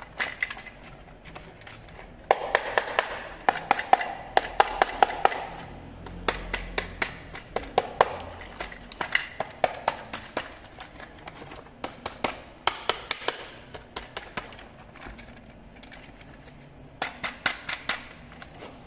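Hard plastic being handled: clusters of quick, sharp clicks and taps, several to a second, with short pauses between the clusters.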